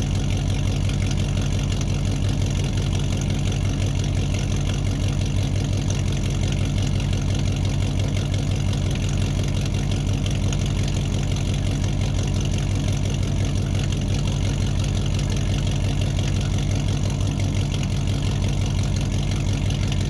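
An engine idling steadily, a low, fast, even pulse that holds the same speed throughout.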